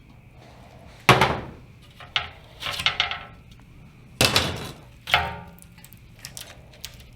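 Five or so loud knocks and clanks at uneven intervals, a couple with brief metallic ringing, from hand work on a rusted windshield support brace.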